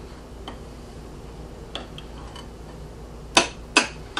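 A table knife cutting French toast on a plate: a few faint taps, then two sharp clinks of metal on the plate about half a second apart near the end.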